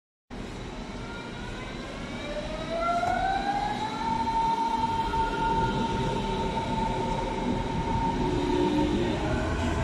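Berlin S-Bahn class 481 electric multiple unit pulling away from a platform. Its traction drive gives a whine of several tones that rise in pitch for about two seconds and then settle into one steady tone, over a low rumble that grows as the train gathers speed.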